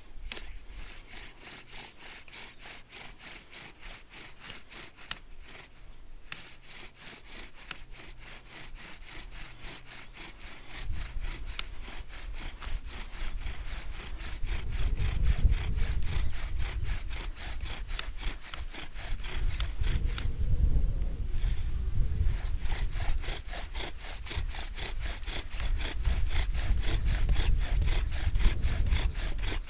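Bow drill in use: a wooden spindle, spun back and forth by a stick bow strung with a bootlace, grinds rhythmically into a wooden hearth board under a stone bearing block. The strokes are fast and even, grow louder and heavier about a third of the way in, and pause briefly about two-thirds of the way through.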